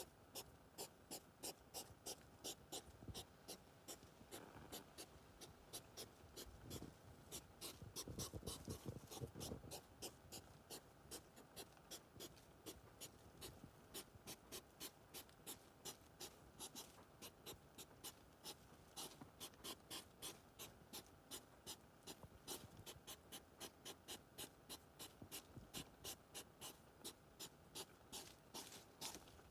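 Hedgehogs' courtship huffing: faint, short, sharp breaths repeating evenly about three times a second, typical of a male circling a female in the mating season. A louder rustle comes about eight seconds in.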